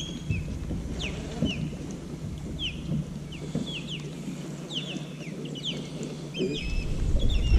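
Songbirds chirping in shoreline trees: many short, high, downward-sliding chirps, about three a second, over a low rumble that fades in the middle and returns near the end.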